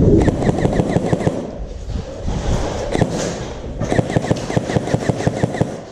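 Airsoft guns firing rapid full-auto strings of shots, in two bursts of about two seconds each with a short lull between.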